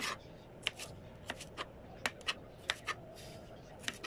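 Kitchen knife chopping tomato on a plastic cutting board: about ten sharp, irregular taps as the blade strikes the board.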